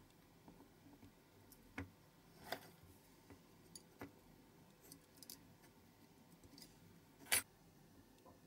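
Scattered small clicks and taps of parts being handled on a diecast metal model aeroplane while a small electric motor is fitted into its nose, the loudest click near the end.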